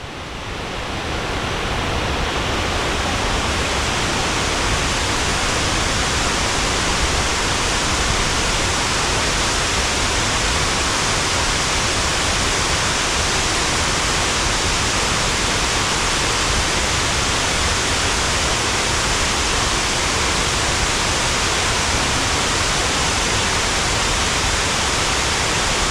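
Waterfall rushing: a steady, dense roar of falling water that fades in over the first couple of seconds and then holds constant.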